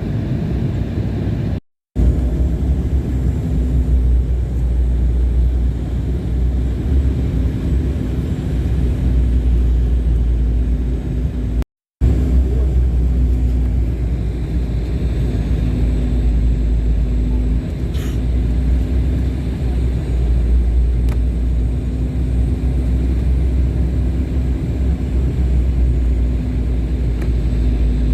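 Steady low rumble of a vehicle heard from inside, with a faint steady hum over it, broken by two abrupt cuts.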